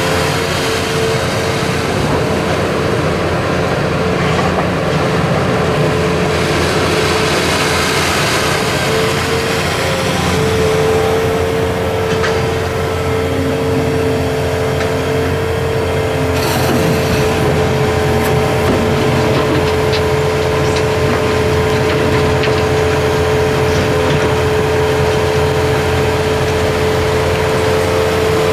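Volvo EC480D excavator's diesel engine and hydraulics working, with a steady whine held over the engine's running. A short knock about halfway through.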